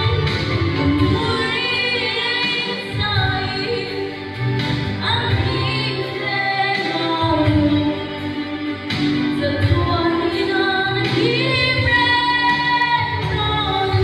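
A young girl singing a song into a handheld microphone, her voice amplified over instrumental accompaniment with a steady low beat.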